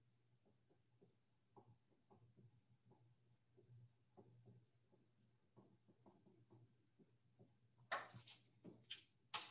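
Dry-erase marker writing on a whiteboard: faint, quick scratchy strokes over a low steady hum, with a few louder strokes near the end.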